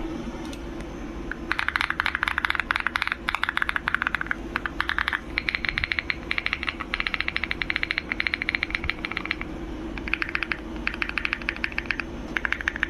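Fast typing on a mechanical keyboard: dense runs of key clacks starting about a second and a half in, with short pauses between runs, over a steady low hum.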